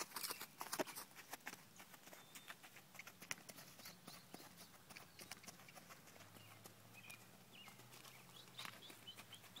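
Faint, soft hoofbeats of a young horse walking on sand under a rider, with scattered small clicks, busier in the first couple of seconds.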